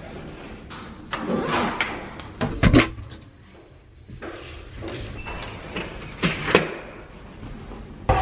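Luggage locker being opened and a hard-shell suitcase handled into it: a series of knocks and clunks, loudest a few seconds in, with a thin high electronic tone for about three seconds near the start.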